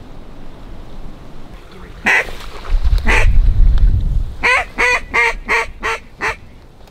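Duck quacking: two loud quacks, then a run of six quick quacks in a row about four and a half seconds in. A low rumble on the microphone sits under the second quack.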